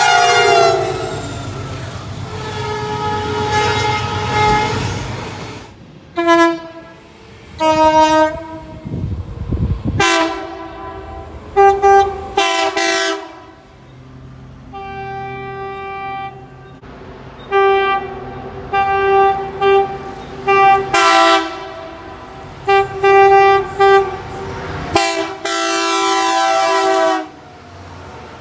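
Train horns sounding in a series of blasts from several different trains, cut one after another. Some blasts are long and some come as quick strings of short toots. The first horn slides down in pitch about a second in as the train passes, over the rumble of the train.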